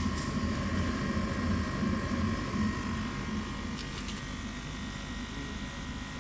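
Kamach 1290 laser cutting machine running: a steady mechanical hum with a low rumble and a constant whine, with two faint ticks about four seconds in.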